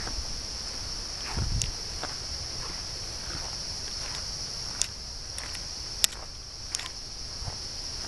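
A steady, high-pitched drone of insects, with scattered footsteps and a few sharp clicks.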